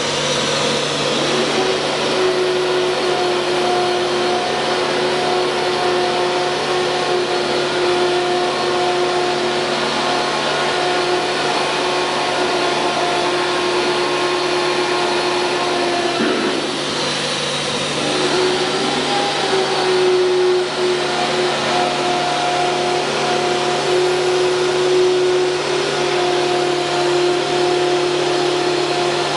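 Disc-type ATC CNC router running: its high-speed spindle gives a steady whine over a continuous mechanical hum. The whine breaks and shifts pitch briefly about halfway through.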